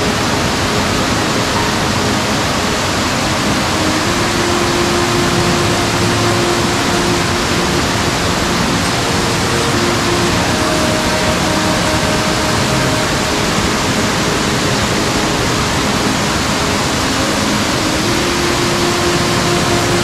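Waterfall water pouring and splashing, a loud steady rush with no let-up.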